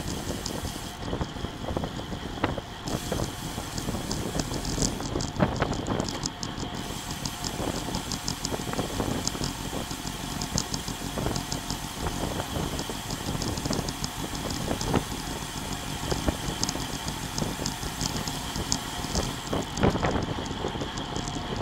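Road bike coasting fast on asphalt: wind rushing over the handlebar camera's microphone and tyre noise, with the rear freehub ticking and an occasional knock from the road surface.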